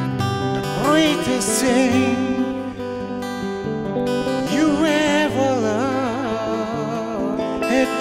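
Live guitar duet: strummed acoustic guitar and electric guitar playing chords, with a lead melody wavering in pitch in two phrases.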